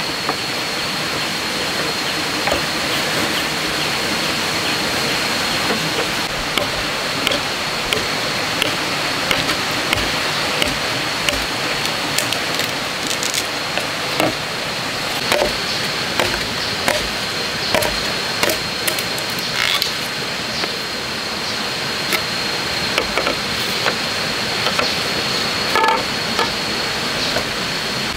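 Machete chopping and knocking on green bamboo poles, short sharp knocks about once a second, over a steady background hiss with a constant high whine.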